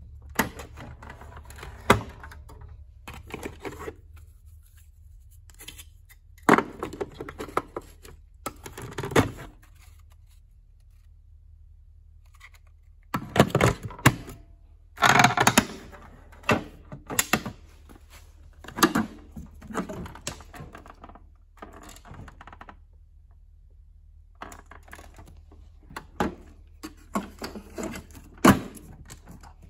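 Hands handling the hard plastic body and attachments of a Kenmore canister vacuum, which is switched off: irregular clicks, knocks and rattles in bursts of a second or two with pauses between, as the tool storage compartment is opened and the brushes are moved.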